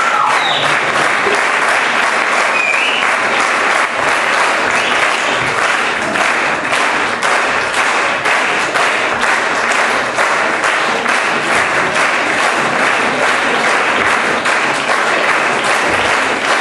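A theatre audience applauding steadily, many hands clapping together.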